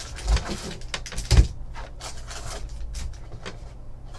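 Cardboard trading-card box and foil card packs being handled and opened, with scattered knocks and rustles. The loudest knock comes about a second and a half in.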